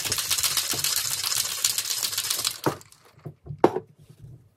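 Ice cubes rattling inside a stainless-steel cocktail shaker being shaken hard, a fast steady rattle that stops about two and a half seconds in. A few sharp knocks follow, the loudest near the end, as the shaker is set down on the table.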